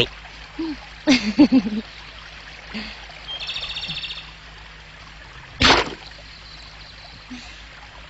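Trickling stream water with a bird giving a short rapid high trill in the middle. A short sharp noise comes about a second in and a louder one a little past halfway.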